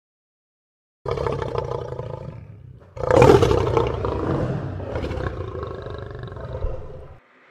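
Lion roaring twice: a first roar about a second in, then a louder, longer roar from about three seconds that fades and cuts off near the end.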